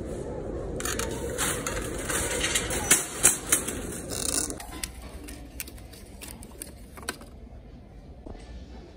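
Wire-frame metal shopping cart pulled out of a nested row of carts and wheeled off, its basket and casters rattling and clattering, with two louder clanks about three seconds in. The rattling thins to scattered clicks and dies away near the end.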